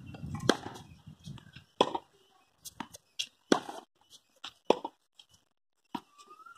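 Tennis ball struck by rackets and bouncing on a hard court during a baseline rally: a string of sharp pops a second or so apart, with fainter footstep and bounce taps between them.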